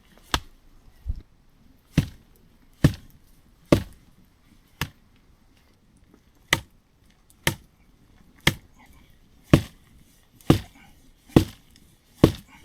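Firewood being chopped or split: about a dozen sharp wooden strikes, roughly one a second, with a short pause midway.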